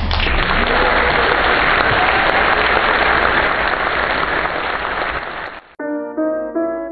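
Steady applause. It cuts off abruptly near the end, and light music begins with a tune of short, separate notes.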